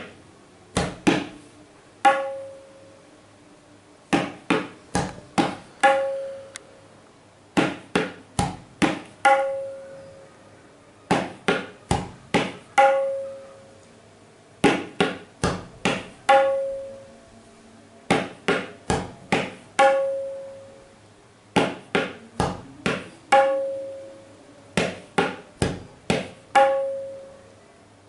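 Tabla playing the bol phrase 'tere kete ta' over and over. Each cycle is four quick, dry strokes (tere kete) and then a ringing 'ta' on the right-hand treble drum (dayan). The cycle comes about every three and a half seconds, eight times over.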